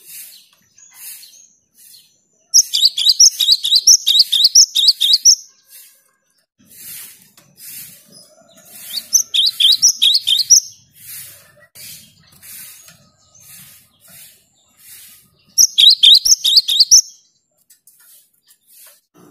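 Cinereous tit (gelatik batu) singing: three loud bursts of rapid, high chirps, the first about three seconds long and the others shorter, over softer short calls repeated about twice a second.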